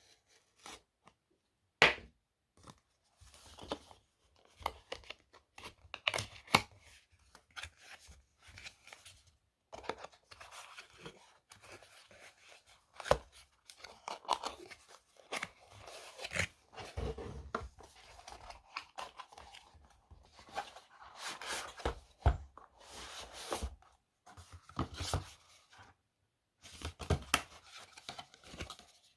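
Product packaging being opened and handled by hand: irregular tearing, scraping and crinkling with scattered clicks and knocks, the sharpest click about two seconds in.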